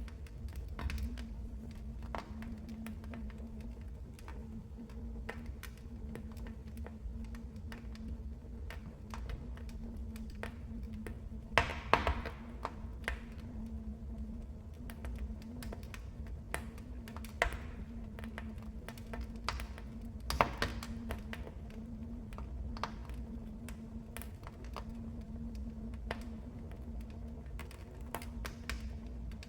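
Wood fire crackling in a fireplace: an irregular run of small sharp crackles over a low rumble, with a few louder pops around the middle.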